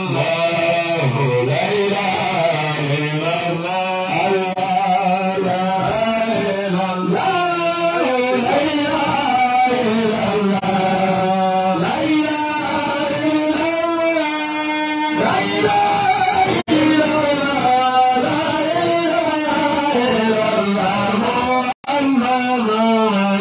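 Men singing a devotional chant through handheld microphones over a PA, the melody held and bending. The sound drops out briefly twice in the second half.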